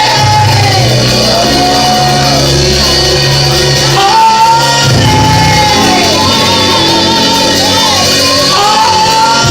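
Loud praise music: voices singing and shouting a wavering melody over steady bass notes that change every second or two.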